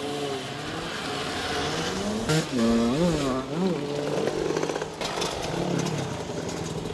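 Moped engines running near idle. One is revved in quick blips about halfway through, its pitch rising and falling two or three times.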